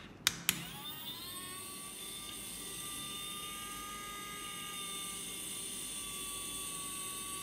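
The small electric motor of a scale RC truck chassis spins up after a couple of sharp clicks, its whine rising in pitch over about a second and then running steady and high.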